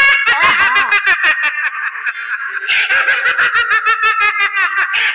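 Opening of a Valentine's Day song played over the video: loud, fast, high-pitched vocal-like notes in quick repeated strokes, before the sung lyrics begin.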